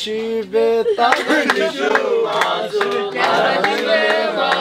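A group of people singing together, several voices at once, with held notes in the first second.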